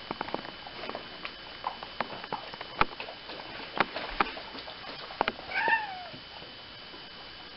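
Bernese Mountain Dog puppy lapping water from a metal bucket, a quick run of wet clicks and splashes. About five and a half seconds in, a cat gives one short meow that falls in pitch.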